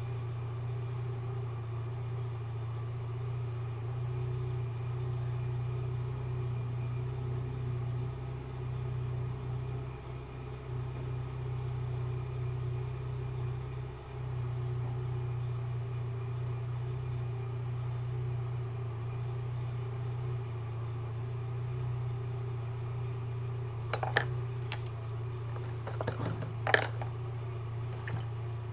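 A steady low hum, with a few light clicks near the end.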